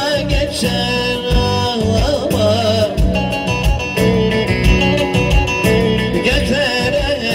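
Live Turkish folk song: a man sings a wavering, ornamented melody over a plucked bağlama (saz) and a keyboard accompaniment with a steady beat.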